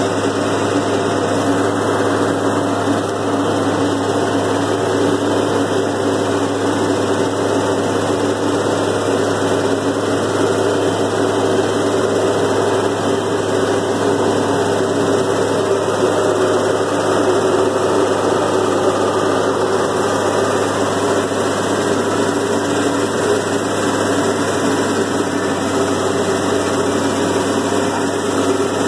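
Farm tractor engine running steadily as the tractor drives along, heard from inside its cab.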